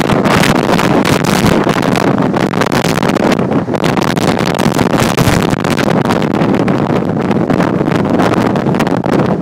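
Storm-force wind blasting against the microphone: a loud, continuous rush of noise.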